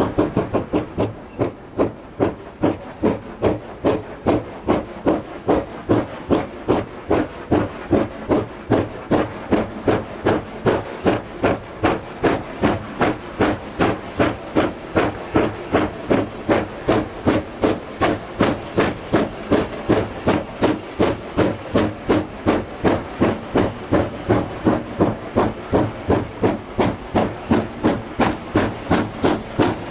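China Railways JS class 2-8-2 steam locomotive working hard while hauling a long train, its exhaust beating in a steady rhythm of about three chuffs a second.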